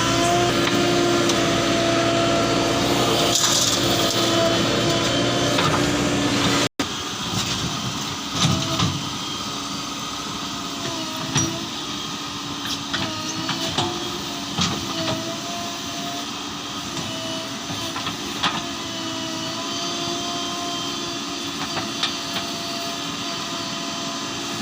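JCB 3DX backhoe loader's diesel engine running under working load, its pitch dipping and rising as the hydraulics work, with occasional short knocks and clanks.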